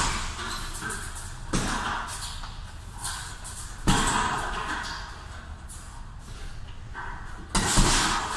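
A heavy punching bag being struck hard, one loud thud every two to four seconds, four blows in all, each echoing briefly in a large hall.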